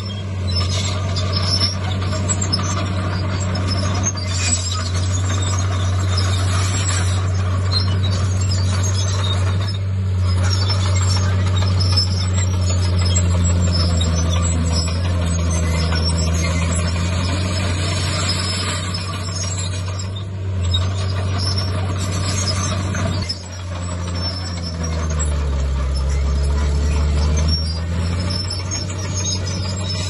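Heavy diesel earthmoving machinery working: a deep, steady engine drone over mechanical clatter, the engine's pitch sagging and then recovering a couple of times as it takes load, once in the middle and again near the end.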